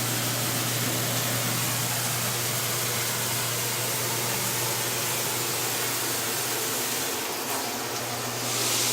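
Filtered shower head spraying water with a steady hiss, over the constant hum of a bathroom exhaust fan. The spray sound dips and shifts briefly about seven seconds in.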